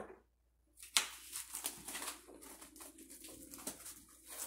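Cloth rubbing and scraping against a phone's microphone, with a sharp knock about a second in and a dense run of small clicks and rustles after it.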